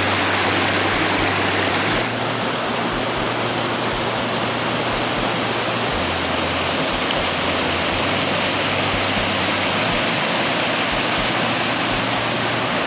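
Mountain creek waterfall rushing, a loud steady roar of falling water. About two seconds in, its hiss shifts and reaches higher.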